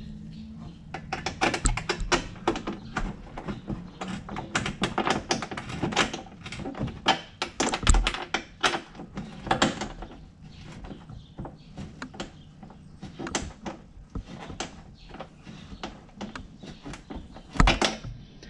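Fender liner bolts being tightened by hand: a quick, irregular run of clicks and light knocks of metal on the plastic liner, with a few louder thunks, one about eight seconds in and a pair near the end.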